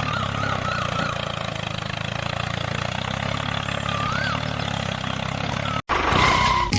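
A small engine running steadily at idle, which cuts off abruptly near the end.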